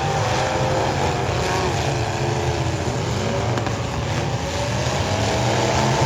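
Several demolition derby car engines revving at once, their pitches rising and falling independently, with no clear impact standing out.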